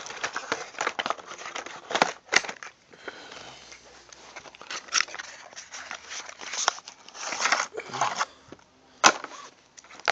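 Crinkling and rustling of foil trading-card packs, a cardboard box and cards being handled, with irregular crackles and scattered sharp taps, the loudest about nine seconds in.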